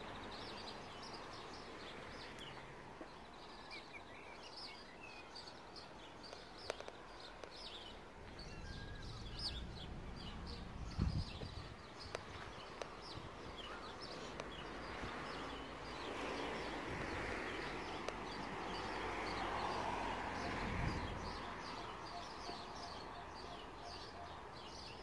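Small songbirds chirping and singing over a steady outdoor background hiss. Two low thumps come about 11 and 21 seconds in.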